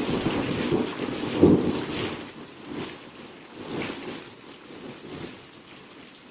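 Heavy rain pouring down with gusts of wind buffeting the microphone. It is loudest about a second and a half in, then eases off in weaker surges.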